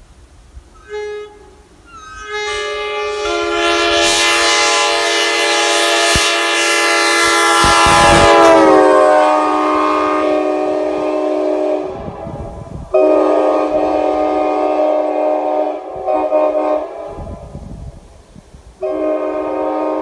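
Nathan K5LA five-chime air horn (bells 1, 2, 3a, 4, 5) blowing from a passing vehicle. A short toot about a second in, then a long chord that builds, drops in pitch around eight seconds in as the vehicle goes by, and fades. Then further blasts follow as it moves away, the last one starting near the end.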